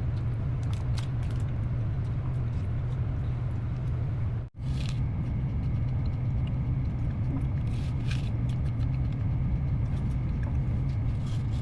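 Steady low hum of a room's ventilation, with scattered light clicks and taps of utensils on a meal tray. The sound drops out briefly about four and a half seconds in.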